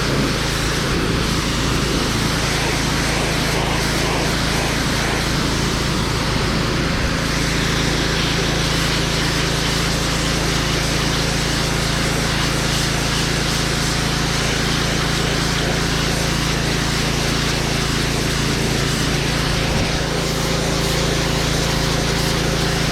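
Gas-powered pressure washer engine running steadily, with the constant hiss of the high-pressure water jet. The washer is holding steady pressure, fed by a battery transfer pump instead of mains water.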